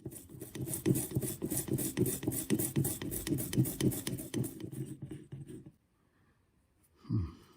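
Rhythmic hand scraping or scrubbing strokes on a carburetor part, about four a second, stopping about two-thirds of the way through, followed by a single thump near the end.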